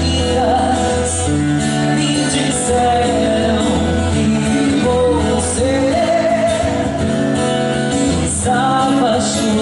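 Live band music: a woman singing a melody into a microphone over a drum kit and band accompaniment.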